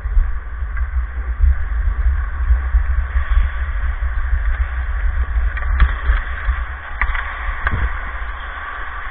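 Ice hockey play heard on the camera's microphone: a steady low rumble and hiss, with a few sharp knocks of sticks or puck about six, seven and eight seconds in.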